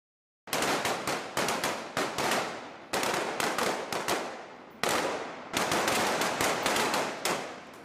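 Several pistols firing in rapid, overlapping shots, each with a short echoing tail. The firing starts about half a second in and goes on without pause.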